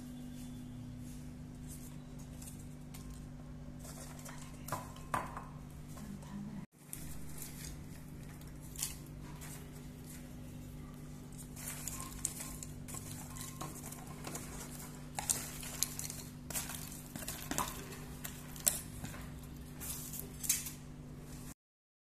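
Popped popcorn poured from a plastic dish into a glass bowl: light rustling of the popcorn with scattered clinks and knocks of dish and glass, over a steady low hum. A few knocks come first; the pouring starts about halfway through and the sound cuts off just before the end.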